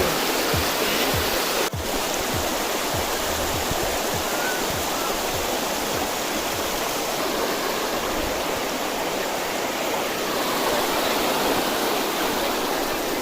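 Rushing water from a monsoon-fed stream or waterfall, steady throughout, under background music with a low beat about twice a second that fades out about halfway through.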